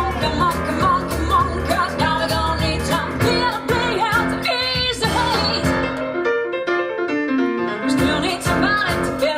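Boogie-woogie swing song with a woman singing over piano and band. For about two seconds in the middle the bass and drums drop out, leaving a descending line on its own before the full band comes back.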